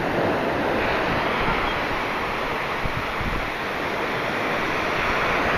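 Surf washing up the beach in a steady rush, with wind buffeting the microphone.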